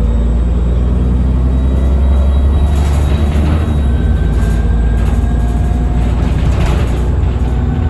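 Cummins ISBe diesel engine of a Transbus Trident double-decker bus running under way, a loud steady low drone heard on board. About halfway through, a thin high turbo whine comes in and holds.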